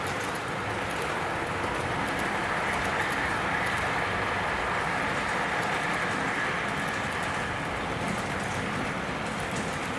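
A long model train of log wagons rolling past on the track: a steady rattle of many small metal wheels on the rails, with faint scattered ticks, ending with the brake van.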